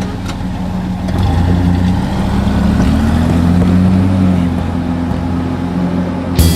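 Vehicle engine pulling away: its note rises over the first few seconds as it accelerates, then holds steady while it drives on.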